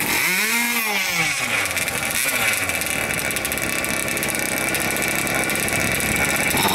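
Small combustion engine of a radio-controlled speed boat running: it revs up and back down in the first second or so, then runs steadily.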